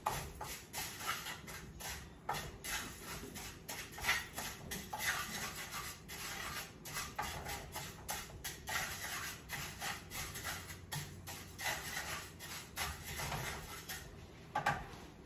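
Wooden spatula stirring and scraping dry rice grains as they toast in a frying pan, a quick uneven run of scrapes and rustles several times a second. A sharper scrape comes near the end, and then the stirring stops.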